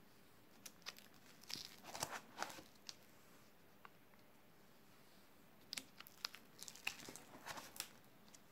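Clear plastic sheet protectors in a ring binder crinkling and rustling as pages are turned, in two bouts of sharp crackles, each two to three seconds long, with a quiet stretch between them.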